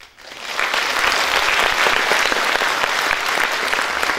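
Audience applauding, swelling within the first half second and then holding steady.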